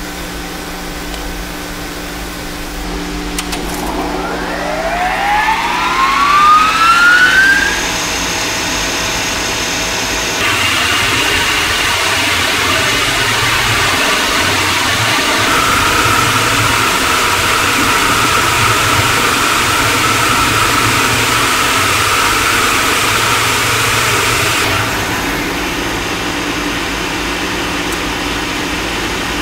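Burner blower of a gas-fired Scotch marine boiler spinning up on a cold start, with a whine that rises in pitch over about four seconds. A few seconds later a steady loud rush of burner air and firing steps in, then drops back a few seconds before the end.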